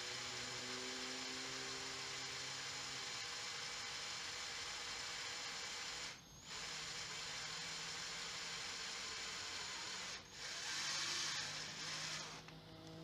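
Electric drill running with a twist bit, boring through a QuikSteel epoxy putty patch on a dirtbike rim to make the valve-stem hole. It stops briefly twice, about six and ten seconds in, and runs louder for a moment near the end before winding down.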